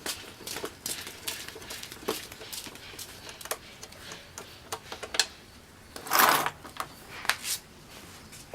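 Screwdriver work on a scooter's plastic battery box: irregular small clicks and ticks of the tool and screws, with a brief, louder scraping noise about six seconds in.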